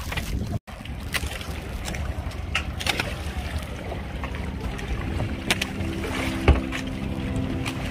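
Wind and water noise on a small fishing boat at sea, with a steady low rumble and scattered knocks and clatter. Background music with held notes fades in about five seconds in.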